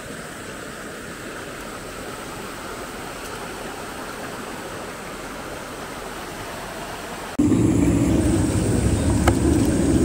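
Mountain stream running over rocks: a steady rushing of water. About seven seconds in it jumps abruptly to a much louder, deeper rush.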